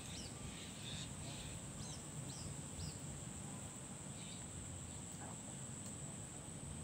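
Rural outdoor ambience: a steady high-pitched insect drone, with short bird chirps, several in the first three seconds and a few more later, over a low background rumble.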